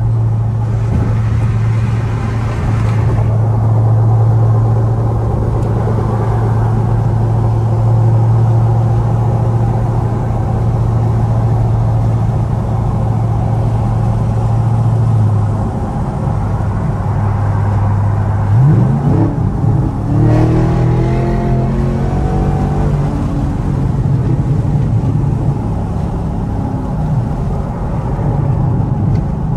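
Nissan Z's V6 engine holding a steady drone while cruising, then, about 18 seconds in, revving up with a rising pitch and stepping through gear changes as the car accelerates.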